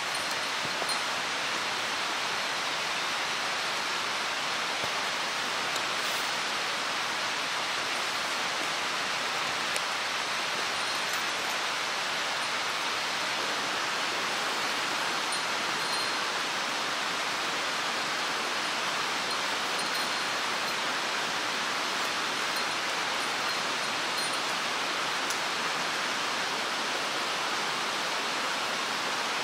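Mountain stream water rushing steadily, an even, unbroken wash of noise.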